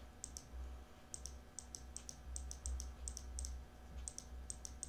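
Computer mouse button clicking repeatedly and irregularly, about two or three clicks a second, each a quick pair of light ticks, over a low steady hum.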